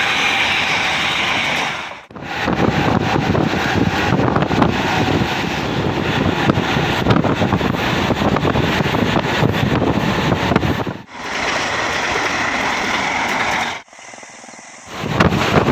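Mumbai suburban local train (electric multiple unit) running, a steady rumble and rattle with wind buffeting the microphone and a high whine at times. The sound drops out suddenly three times, longest near the end.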